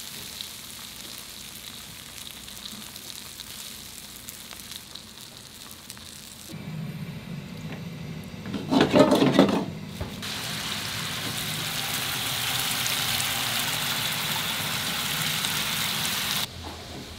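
Pork intestines (gopchang) sizzling as they cook. The sizzle changes abruptly a couple of times. There is a brief louder burst about nine seconds in, and the sizzle is at its loudest for several seconds after it.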